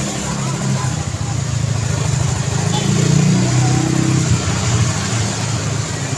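Road traffic: vehicle engines running, with one vehicle growing louder to a peak about three seconds in as it passes close, then easing off.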